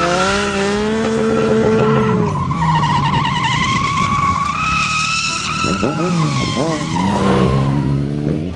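Car engine revving hard while the tyres squeal through a drift. The revs drop a couple of seconds in and climb and fall again near the end, and a wavering tyre squeal runs through the middle.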